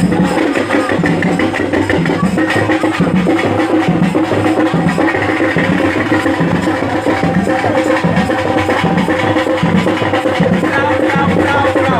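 Music with a steady drum beat, about two beats a second, under a melody.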